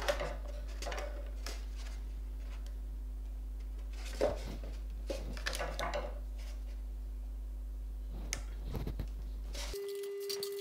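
Light handling sounds as thin antenna radial wires are measured against a ruler and snipped to length: a few short clicks and rustles over a steady low electrical hum. Near the end the hum cuts out and a steady mid-pitched tone takes over.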